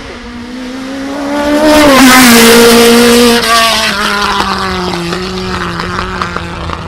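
Race car passing at speed. Its engine note builds as it approaches, drops in pitch as it goes by about two seconds in, then carries on lower and fades away.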